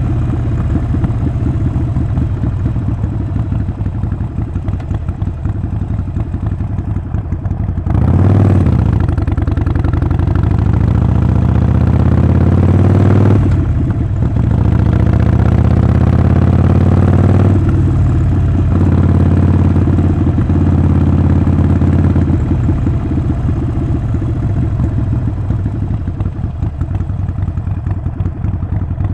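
Harley-Davidson Sportster 48's air-cooled 1200 V-twin running at low, steady speed, then accelerating hard about a third of the way in. The pitch rises, drops as the bike shifts up a gear, and rises again before the throttle rolls off and it settles back to a steady, lower run.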